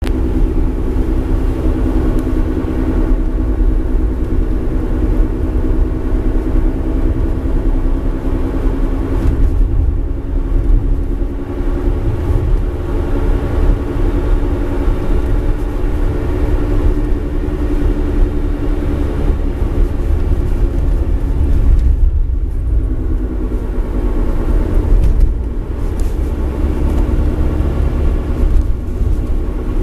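Mitsubishi eK Sport (H81W) driving along: a steady low rumble with a constant droning hum running through it, from a left front hub bearing that is failing.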